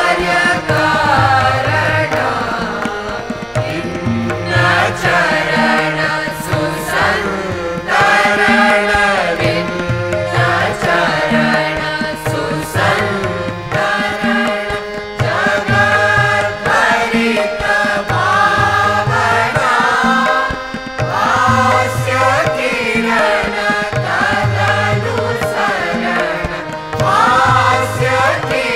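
Background music in an Indian classical style: a voice singing a slow, gliding melody over a low, regularly pulsing accompaniment.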